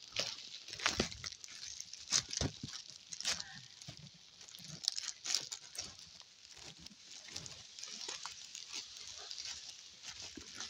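Cut cattle-fodder stalks and leaves rustling and crackling against the phone as the heavy bundle is carried, with irregular sharp snaps and scrapes throughout.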